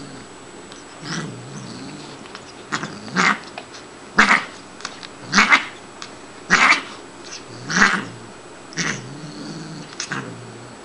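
Siamese cat growling low, broken by about eight sharp hisses roughly once a second as she play-fights. It is play aggression: she is not really angry.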